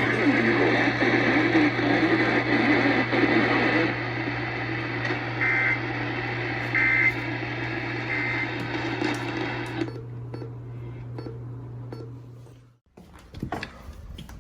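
Received emergency-alert broadcast audio: steady static hiss and a low hum, with three short digital data bursts in the middle, about a second and a half apart, the EAS end-of-message tones that close the alert. The hiss drops out about ten seconds in and the hum cuts off near the end.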